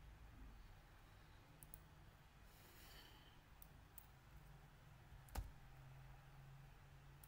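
Near silence with a few faint computer mouse clicks, one louder click about five seconds in, and a short soft breath near three seconds in.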